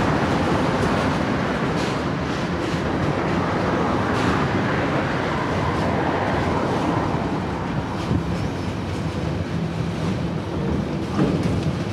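Freightliner binliner train of container wagons rolling past in a steady rumble of wheels on rail, with a few sharp clicks, a little quieter in the later part.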